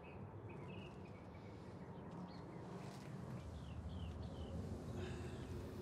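Outdoor ambience: faint birds chirping now and then over a low, steady rumble.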